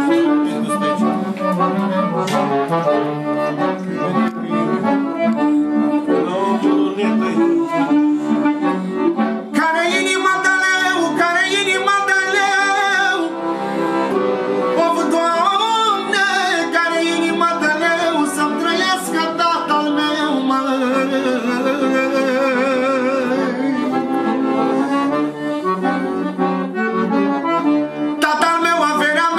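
Piano accordion playing a solo manele melody over its own chords, with quick runs and wavering held notes.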